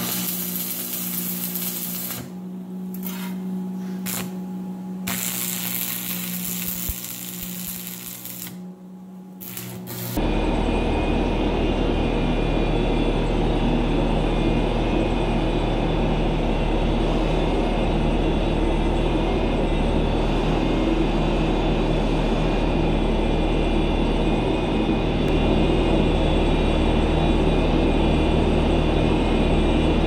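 AC stick welding from a Lincoln buzz-box welder: the arc crackles and hisses with a steady hum underneath, stopping briefly three times. About ten seconds in it gives way to the Bobcat T650 compact track loader's diesel engine running steadily with a deep rumble.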